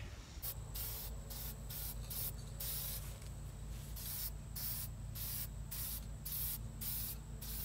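Aerosol spray paint can spraying paint onto a fuel tank in many short hissing bursts, about two or three a second, a few held a little longer.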